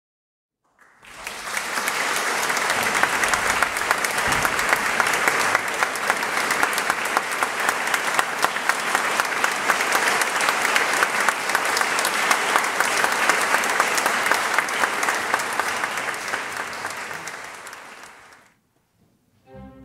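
Audience applauding: dense, steady clapping that starts about a second in and dies away shortly before the end.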